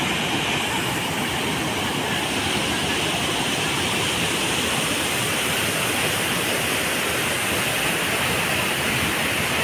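Swollen, muddy floodwater pouring over a dam and churning over rocks: a steady roar of rushing water that stays even throughout.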